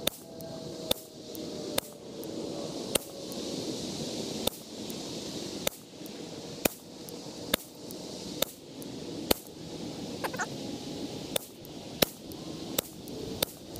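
Ruger 10/22 semi-automatic .22 rimfire rifle firing Eley SABR rounds in a steady string of single shots, roughly one a second, with short irregular pauses between them. A steady insect buzz carries on between the shots.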